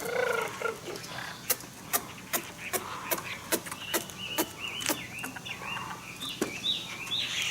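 Caged Chinese hwamei (melodious laughingthrush) starts a rapid, warbling song a few seconds in, growing louder toward the end. Sharp clicks sound about twice a second throughout.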